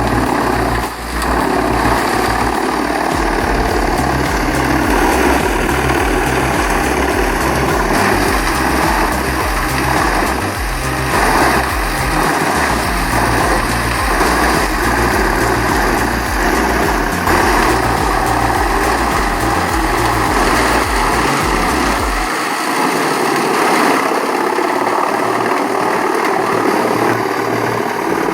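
Heavy machine's engine running steadily.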